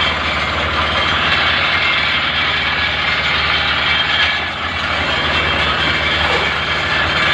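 Concrete mixer running steadily: a constant engine hum with an even rushing noise over it.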